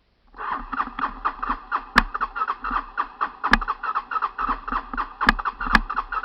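Honda TRX 300 ATV engine cranking over on its electric starter without catching: an even chugging of about eight beats a second, with a few sharp clicks among the beats. The engine is flooded.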